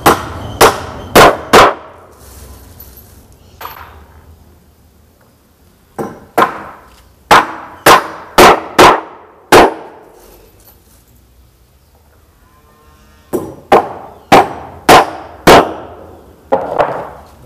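Hammer nailing together the wooden planks at the bow of a boat under construction. Sharp blows come in three runs of four to seven strikes, about two a second, with quiet pauses between the runs.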